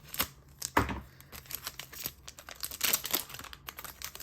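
A foil Pokémon card booster pack being torn open and crinkled in the hands: a string of sharp rips and crackles, the loudest just under a second in and another flurry around three seconds.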